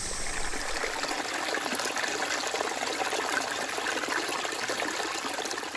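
Shallow stream water trickling and splashing steadily over rocks.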